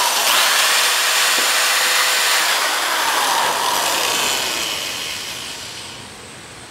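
Electric drill running at speed with a small bit boring a pilot hole through the thin metal of a tea tin; about four seconds in it is let off and its whine falls in pitch and fades as it spins down.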